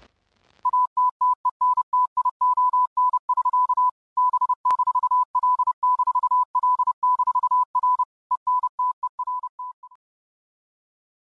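Morse code beeps: a single steady tone keyed on and off in irregular short and long pulses, growing fainter and sparser near the end.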